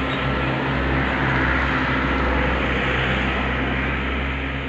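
A machine running steadily, a low hum under an even hiss.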